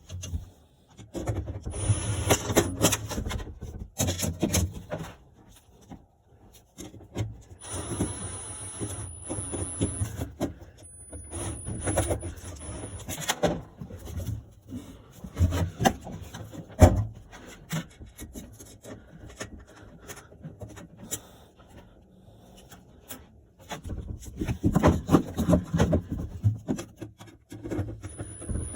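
Irregular rubbing and scraping handling noises with many scattered clicks and knocks, one sharp knock about seventeen seconds in.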